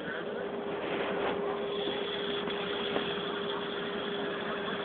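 Steady night-time street noise of traffic and a crowd, with a constant hum under it.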